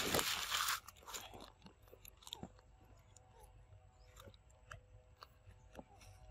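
Young macaque biting into and chewing a mango: a short stretch of loud crunching at first, then faint scattered smacks and clicks.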